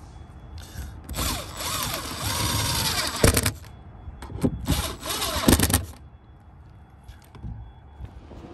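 Cordless driver sinking self-drilling roofing screws into a sheet-metal roof plate, running twice: once for about two seconds starting about a second in, then again for about a second and a half, its motor pitch rising and falling as the screw bites.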